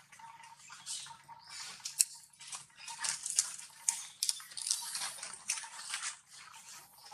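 Dry fallen leaves rustling and crackling in quick, irregular crisp snaps, over a faint steady low hum.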